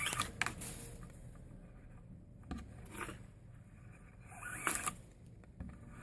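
Nylon paracord rustling and sliding as it is threaded through the knot and pulled tight, in a few short scraping strokes.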